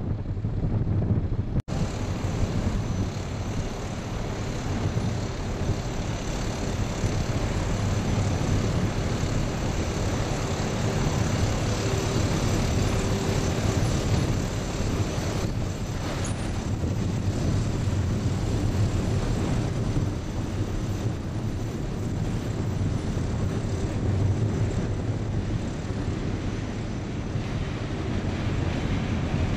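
Wind buffeting the microphone on the deck of a moving river cruise ship, over a low steady drone; the sound briefly cuts out about two seconds in.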